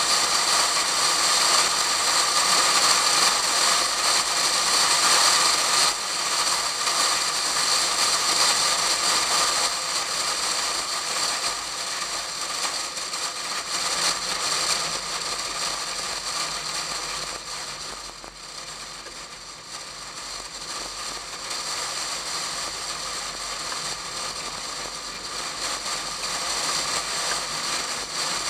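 Wind rushing and buffeting over a camera in a waterproof case mounted outside a Pontiac Fiero at track speed, a steady hiss with the car's engine and road noise buried beneath it. The rush eases somewhat a little past the middle.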